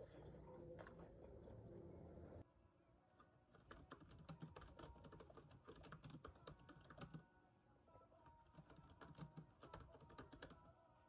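Faint eating sounds for the first couple of seconds, then typing on a laptop keyboard: quick, uneven key clicks from about three seconds in.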